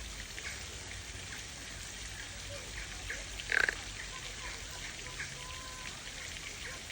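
Small stream of water trickling and splashing steadily, with one brief, louder sound about halfway through.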